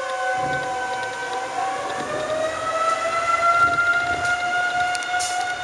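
Outdoor tornado warning sirens sounding a tornado warning. Several sirens at different pitches overlap, each tone slowly gliding up and down.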